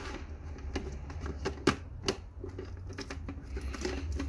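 Irregular small clicks and knocks of a coiled power cable and air hose being pushed into the storage compartment of a 70mai portable air compressor's plastic case, over a low steady hum.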